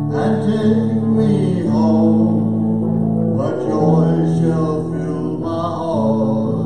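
Live band music with electric and acoustic guitars playing held chords that change every second or two, with a melody line above them.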